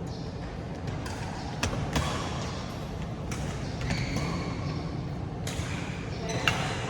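Badminton rally: a string of sharp racket strikes on a shuttlecock at irregular intervals of about a second, with the steady hum of a large hall behind them.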